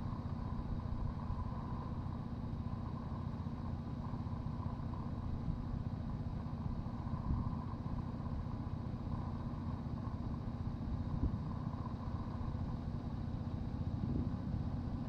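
Steady low rumble of a gas V6 pickup engine idling, a 2019 Chevrolet Colorado ZR2 Bison.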